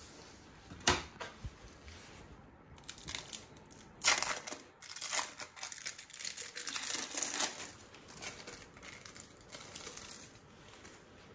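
Packaging crinkling and rustling in uneven bursts, loudest from about four to eight seconds in, as a slice of cheese is fetched for a burger. A single sharp click comes about a second in.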